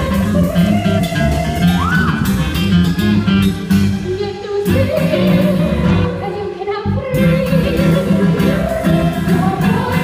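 Show-tune singing over a live pit band, heard from the audience in a theatre. A wavering vocal melody runs over a steady accompaniment, with a quick upward slide about two seconds in.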